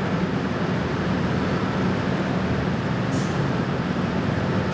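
Rubber-tyred Montreal Metro train running past the platform: a steady low rumble, with a brief high hiss about three seconds in.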